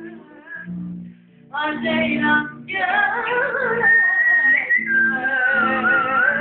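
A woman singing to guitar accompaniment, with a short pause about a second in, then a long high held note that wavers toward the end.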